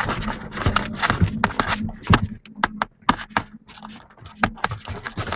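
Irregular clicks and knocks, some in quick clusters: handling noise from a camera being carried while walking, over a faint steady low hum.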